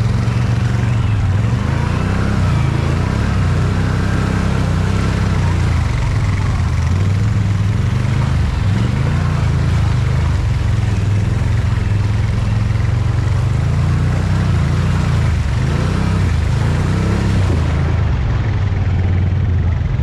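Can-Am Outlander 1000 ATV's V-twin engine running under way, its pitch rising and falling as the throttle is worked.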